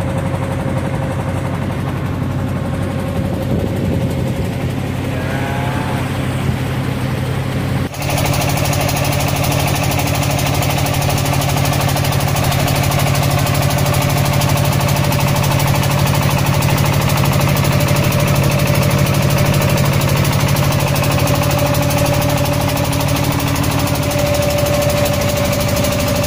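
Boat engine running steadily, a low even drone with a knocking beat. About eight seconds in the sound cuts abruptly to a louder, fuller run of the engine.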